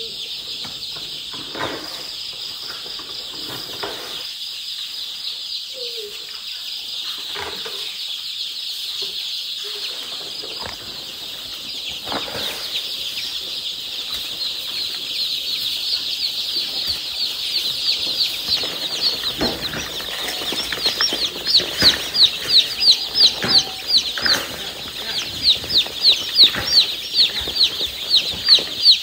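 Newly hatched chicks peeping in a constant high-pitched chorus. From about two-thirds of the way through, single chicks peep louder in quick runs of short falling chirps, a few a second. Occasional faint knocks and rustling lie underneath.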